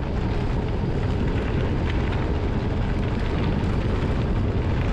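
Wind buffeting a bike-mounted camera's microphone as a gravel bike rolls down a loose gravel trail: a loud, steady, deep rumble with faint ticks and rattles from the tyres on the stones.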